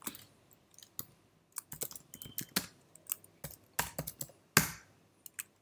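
Typing on a computer keyboard: irregular separate keystrokes, with a few harder presses in the second half.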